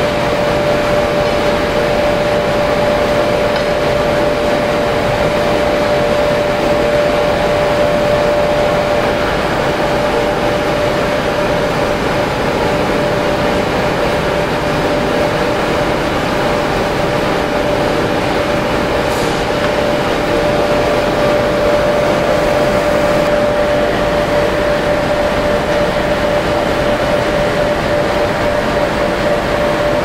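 Gas-fired crucible furnace running: a loud, steady rushing noise from the burner and blower, with one constant humming tone over it.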